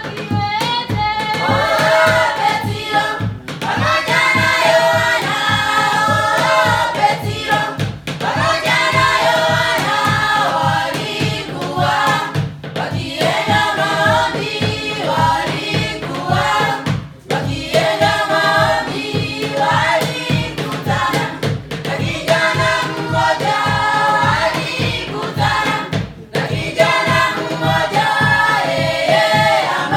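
A choir of voices singing in phrases over a steady, evenly repeating low beat.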